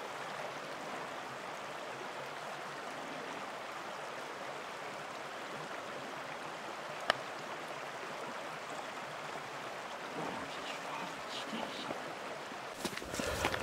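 Small moorland burn running over stones, a steady rushing hiss. There is a single sharp click about seven seconds in, and footsteps on a gravel track start near the end.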